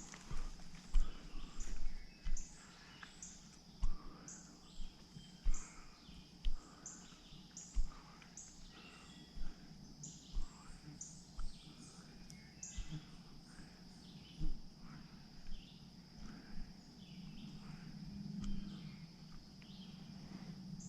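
Woodland ambience: a steady high insect drone with short chirps repeating about twice a second, broken by scattered crunches and snaps of dry leaves and twigs underfoot.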